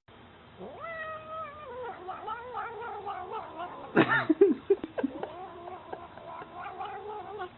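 Tabby cat meowing in long, drawn-out calls that waver in pitch, with a louder, sharper cry about four seconds in.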